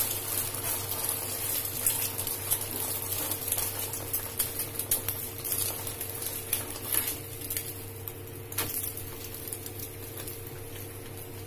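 Egg and roti frying in oil in a pan: a steady sizzle full of small crackles and pops, with a few sharper taps of a spatula against the pan around the middle. The sizzle eases off slightly toward the end.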